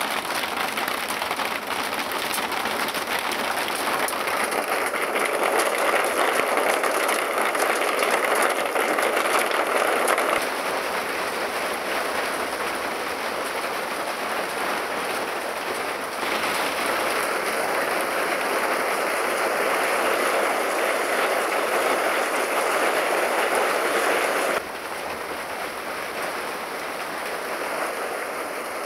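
Heavy downpour from a thunderstorm cell, rain falling hard with a steady, even hiss. The loudness steps up or down suddenly a few times.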